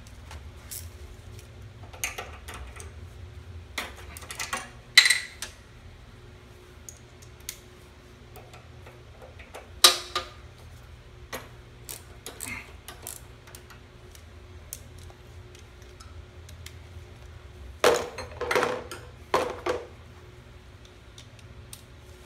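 Irregular metallic clicks and clinks of a hand tool working on a small Briggs & Stratton mower engine while its carburetor is being unbolted, with louder clatters about five, ten and eighteen seconds in, over a low steady hum.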